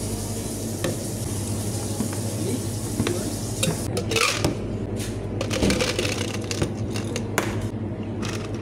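Ice cubes clattering into a plastic shaker cup from a metal scoop, with knocks of the cup on a steel counter: a run of sharp clicks and rattles, busiest from about three seconds in. A steady low hum runs underneath.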